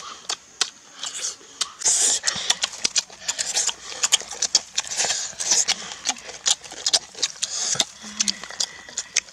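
People eating close to the microphone: crisp bites and chewing of raw cucumber, with lip smacks, heard as a rapid, irregular string of sharp clicks and crunches.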